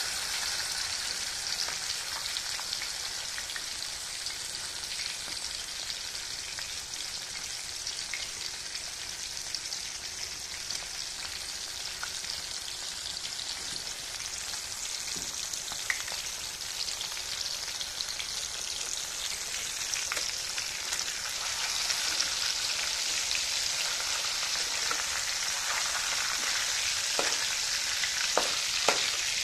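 Pieces of fish shallow-frying in oil in a steel kadai: a steady sizzle that grows louder about two-thirds of the way through, with a few sharp clicks near the end.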